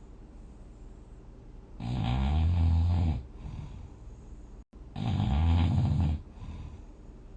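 A person snoring while dozing: two long, loud, low snores about three seconds apart, each followed by a fainter breath.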